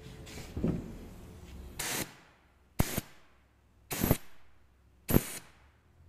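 Four short hisses of compressed air, about a second apart, from an air fitting on a homemade plastic-jug air horn, with faint handling noise before them.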